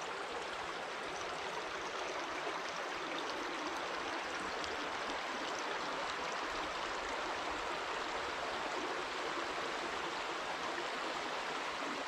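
Shallow rocky stream running over stones and small riffles, a steady rush of water.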